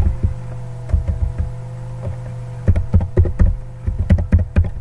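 Computer keyboard being typed on: a few key clicks near the start, then a quick run of keystrokes in the second half, over a steady background hum.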